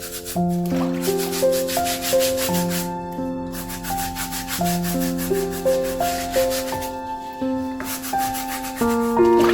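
A stiff brush scrubbing in rapid back-and-forth strokes, stopping briefly twice, over soft instrumental background music with slow, held chords.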